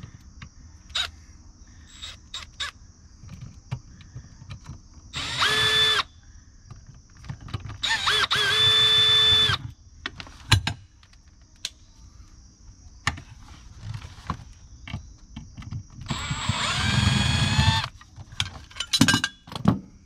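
Milwaukee cordless driver spinning out the screws of an outdoor outlet cover: three short runs of a steady motor whine, the first about a second and the other two nearly two seconds each, with clicks and taps of the metal cover and screws being handled between them.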